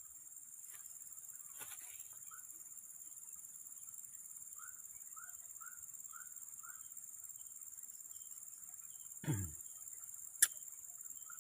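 Steady high-pitched drone of insects, with a soft run of short chirps repeating about twice a second midway. A brief sweep falling in pitch about 9 seconds in and a sharp click about a second later.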